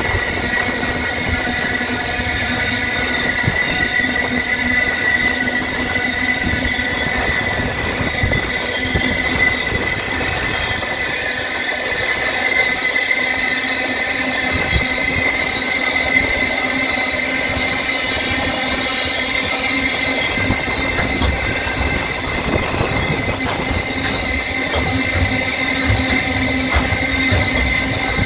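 Livestock wagons of a freight cattle train rolling past close by, their wheels running on the rails with a steady high-pitched squeal over a low rumble.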